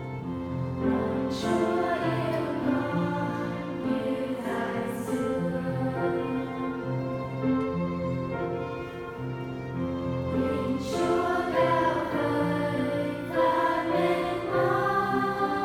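Choral music with an orchestral backing: sustained chords held under wavering sung lines.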